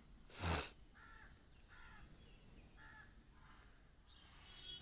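Faint cawing of a crow: several short harsh caws repeated less than a second apart. A short bump comes about half a second in, and a higher bird chirp comes near the end.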